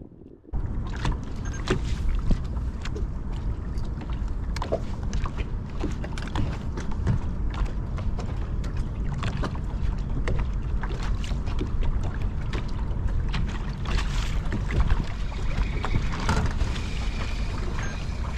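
Steady rumbling noise of wind and water around a bass boat, with many small irregular knocks and ticks scattered through it. It starts abruptly about half a second in.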